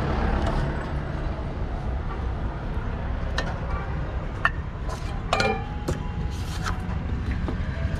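Busy outdoor street ambience: a steady low rumble of traffic, with a few short clicks and knocks scattered through the second half, some of them briefly ringing.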